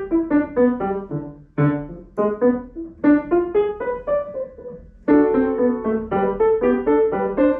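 Solo grand piano played by a child: a lively piece in quick, separate notes grouped in short phrases, with brief breaks about a second and a half in and again near five seconds.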